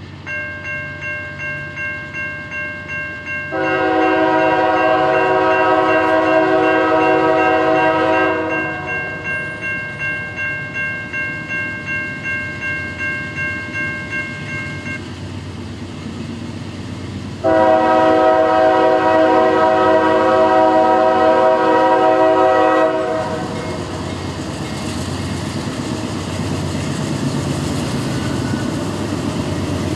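Grade-crossing bell ringing about twice a second, then a diesel freight locomotive's multi-chime air horn sounds two long blasts, about four and seventeen seconds in. From about twenty-three seconds the locomotives reach the crossing and pass, engines working hard under load, with the noise of the train's wheels on the rails.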